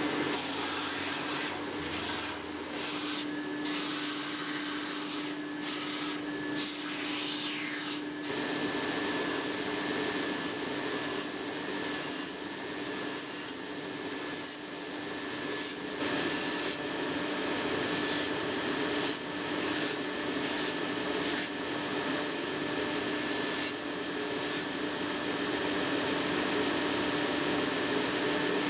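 Electric sanding machine running with a steady hum as a wooden cup blank is pressed against it in repeated short passes, each pass giving a scratchy sanding rasp.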